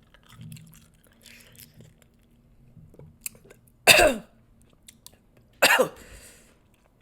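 Soft chewing and mouth noises while eating, then a woman coughs twice: two short loud coughs about four and five and a half seconds in.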